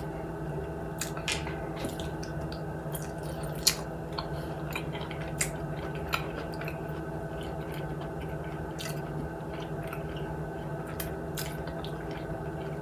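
Close-up chewing of fried chicken wings: wet mouth sounds with scattered sharp clicks, over a steady low hum.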